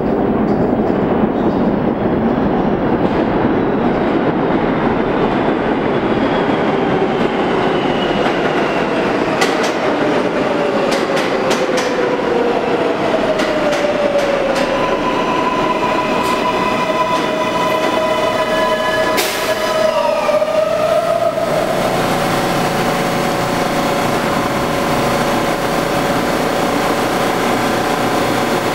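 New York City Subway L train pulling into an underground station. The wheels rumble on the rails while whining tones fall in pitch as it slows, with a run of sharp clicks midway. The train comes to a stop a little after 20 seconds in and then stands with a steady hum.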